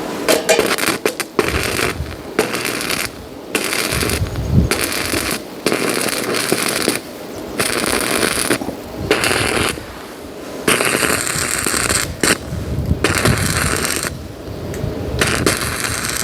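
Electric arc welding crackling and sizzling in repeated short bursts, each lasting about one to two seconds, the arc stopping and restarting over and over.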